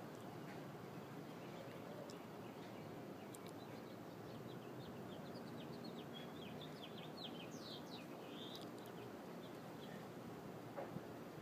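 Faint steady background hiss, with a run of quick high chirps from a small bird starting about three seconds in and lasting several seconds.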